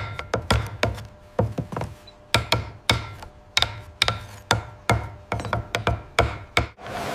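Mallets striking wood chisels cutting into hardwood: a quick, irregular run of sharp knocks, about three a second, stopping shortly before the end.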